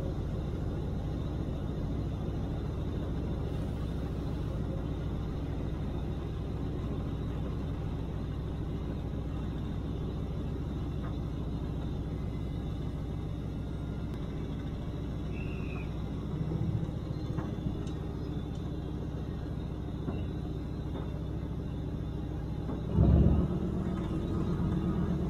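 Lxd2 narrow-gauge diesel locomotive running steadily, its engine drone and the rumble of the train on the track heard from the front of the locomotive. A few light knocks come about two-thirds of the way through, and a brief louder thump near the end.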